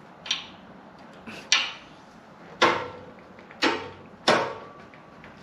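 Metal clinks and knocks from a motorcycle exhaust end cap being worked into the muffler tip to line up its bolt holes. There are about five separate sharp knocks, roughly a second apart, and some ring briefly.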